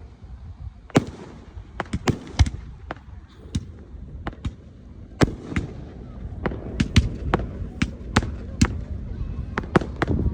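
Fireworks going off in an irregular run of sharp bangs and cracks, one to three a second, over a low rumble.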